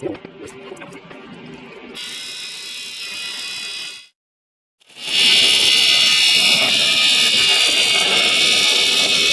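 Welding arc on aluminum pipe, a steady buzz in two stretches, the second louder, broken by a short cut to silence about four seconds in.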